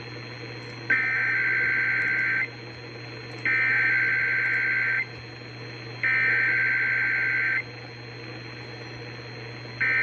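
Emergency Alert System SAME header tones broadcast on the radio to open an EAS test: three shrill, warbling digital data bursts, each about a second and a half long with a second's gap between them, then a short burst near the end. A steady low hum runs underneath.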